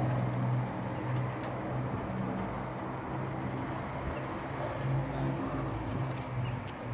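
Avro Lancaster's four Rolls-Royce Merlin V12 engines droning as the bomber flies past, a low hum that swells and fades every second or so. Small birds chirp faintly over it.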